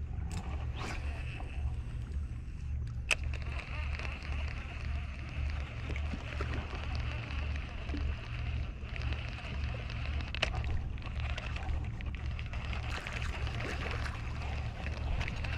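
Calm sea water lapping and sloshing against shore rocks under a low steady rumble, with two sharp clicks, the first about three seconds in and the second about ten seconds in.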